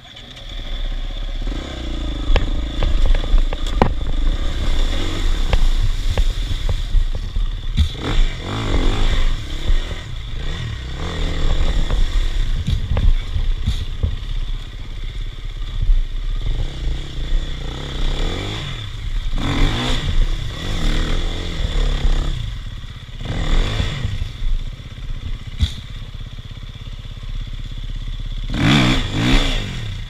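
Dirt bike engine running and revving repeatedly, the revs rising and falling several times, as the bike rides through a shallow, rocky creek.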